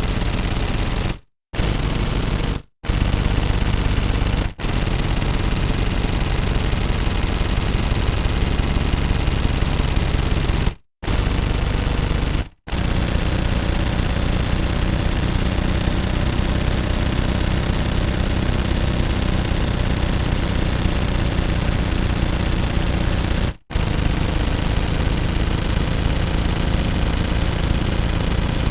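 Sustained rapid automatic gunfire from a machine gun, in long unbroken strings. The strings are separated by several brief silent gaps.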